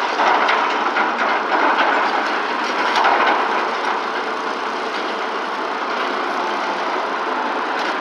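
Diesel engines of a large Sany excavator and a mini excavator working as they dig dirt, a steady loud din with scattered knocks in the first few seconds.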